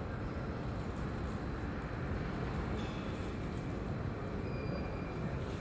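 Steady low rumble of a moving vehicle, heard from inside, with a few faint short high tones about three seconds in and near the end.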